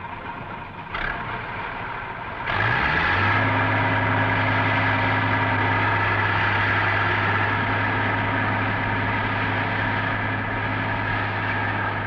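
Massey Ferguson 400 combine harvester's diesel engine speeding up about two and a half seconds in, its pitch rising, then running steadily at working speed.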